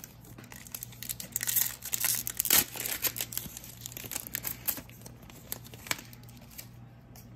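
Shiny card-pack wrapper of a 2020 Absolute football pack crinkling and tearing as it is ripped open by hand: a dense run of crackles, loudest in the first half, then a few scattered crinkles until near the end.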